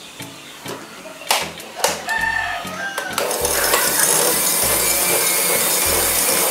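Philips electric hand mixer switched on about halfway in, its beaters whirring through a bowl of foamy egg-white and agar mixture with a steady hiss. Before it starts there are only a few light clicks.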